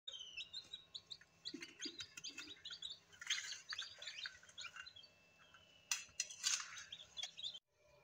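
Newly hatched chicks peeping: many short, high chirps overlapping quickly, with a couple of sharp knocks about six seconds in. The sound cuts off suddenly shortly before the end.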